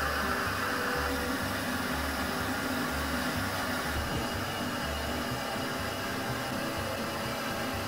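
Fluid-bed coffee roaster's blower running steadily, a loud rushing air stream keeping the beans tumbling in the roasting chamber, with a low pulsing about once a second; the higher hiss of the airflow eases about halfway through.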